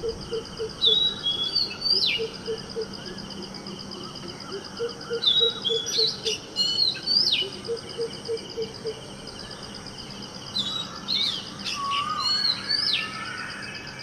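Oriental magpie robin singing, played from a field recording: three phrases of whistles and trills about five seconds apart, each ending with the same sharp note repeated, over a steady high-pitched background drone.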